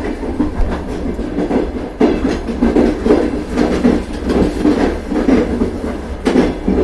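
Steam train running along the track, with a steady rhythmic clatter of wheels and chugging.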